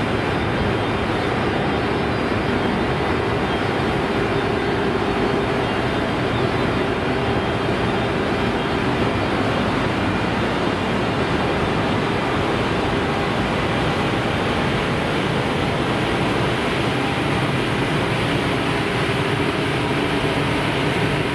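JR Freight EF510 electric locomotive pulling away slowly at the head of a container freight train. Its cooling blowers and traction motors make a steady, loud whir with faint steady tones running through it.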